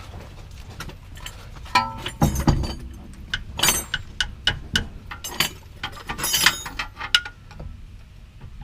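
Irregular metallic clinks and knocks of hand tools and steel parts being handled during front axle removal, a few of them ringing briefly.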